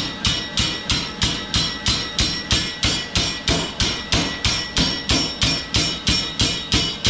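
Mechanical power hammer running and striking in a steady rhythm, about three blows a second, each blow a sharp knock with a short metallic ring.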